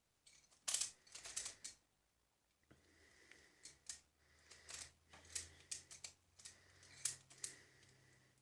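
Scattered small clicks and clacks of plastic speed-cube puzzles being handled, over a faint low hum that comes in about three seconds in.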